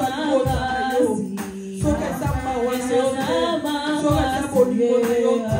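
Church worship music: voices singing over a band with drum beats.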